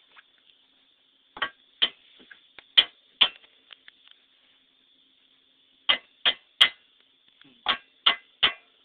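Sharp knocks on a hard object, about ten strikes in quick groups of two or three.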